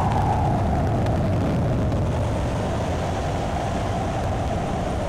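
Steady aircraft engine drone, heard from aboard the aircraft: a deep rumble under a mid-pitched hum.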